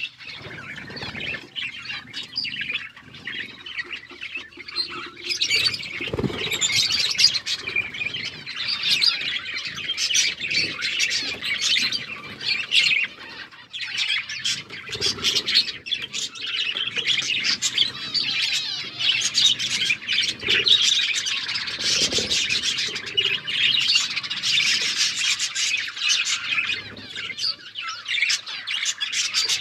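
Several budgerigars chattering and chirping continuously in a dense warble, with a few soft thumps here and there.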